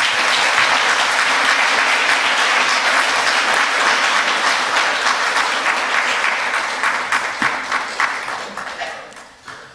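Audience applauding: a dense, steady clapping that fades away over the last two seconds or so.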